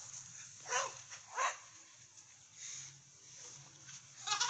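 A dog barks twice, short and sharp, about two thirds of a second apart, early in the second second; a quick run of rapid sounds follows near the end.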